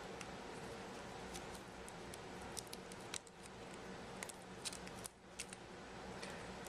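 Scattered light clicks and taps of small hard parts being handled, over a faint steady hum.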